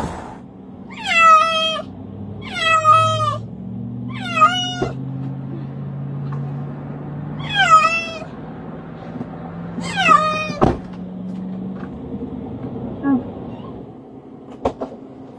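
Cat meowing five times inside a car, each meow short and dropping in pitch at its end, spread over about ten seconds.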